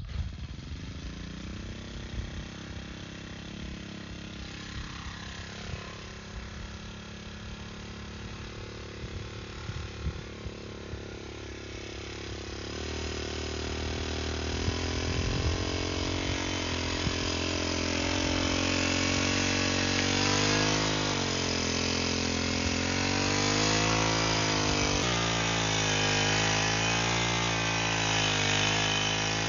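Small engine of a backpack brush cutter running with a tiller/mixing attachment, fairly low at first, then revved up about 12 seconds in. Through the second half its pitch repeatedly rises and dips as the attachment churns through the soil.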